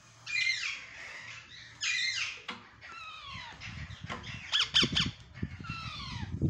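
Ring-necked parakeets calling: two loud, harsh squawks in the first two seconds, then a run of shorter whistled calls that fall in pitch. Low thumps mixed in during the second half.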